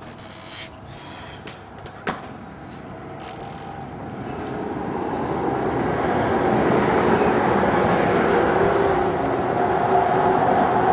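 A few light clicks and a sharp knock from handling parts, then a passing road vehicle approaching, growing steadily louder from about four seconds in and staying loud.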